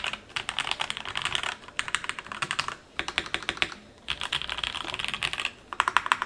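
Fast typing on a Drop CSTM80 mechanical keyboard fitted with Gateron brown switches: dense runs of key clicks broken by four brief pauses.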